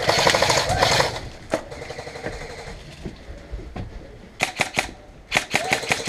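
Airsoft electric rifle firing: a rapid full-auto burst in the first second, then two short bursts of quick snapping shots about four and a half and five and a half seconds in.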